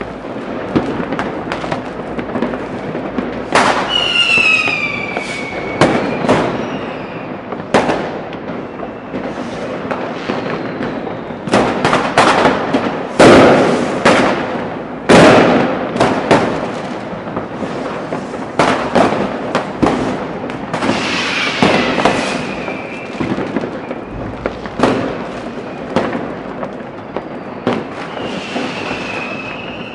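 Fireworks and firecrackers going off without a break, many sharp bangs overlapping, the loudest in the middle. Whistling rockets sound over them: a falling whistle about four seconds in, another past the middle, and one more near the end.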